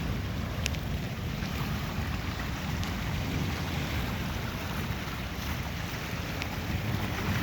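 Wind buffeting the microphone: a steady low rumble with a few faint ticks.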